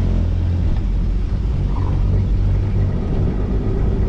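Nissan Patrol GR off-roader's engine running steadily, a deep rumble.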